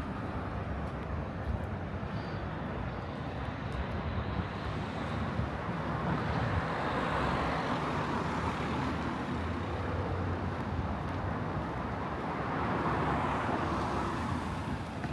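City street traffic: a steady rumble of vehicles, swelling as something passes about halfway through and again near the end.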